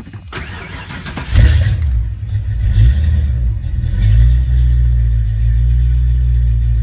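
Ford Mustang 5.0 V8 being cranked and firing about a second and a half in, then running steadily at a fast idle after the cold start, with a brief swell in revs shortly after it catches.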